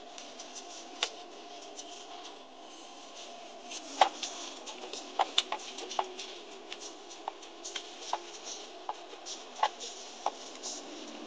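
Inside an off-road vehicle driving over sand dunes: a steady rumble of the vehicle, with irregular sharp clicks and knocks of the cabin rattling over the bumps. The loudest knock comes about four seconds in.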